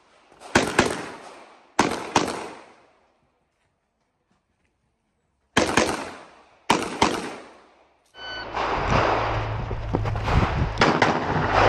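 Pistol shots fired as quick double taps: four pairs, with a pause of a few seconds between the second and third pair. From about eight seconds in, a continuous loud crackling noise with sharp cracks in it takes over.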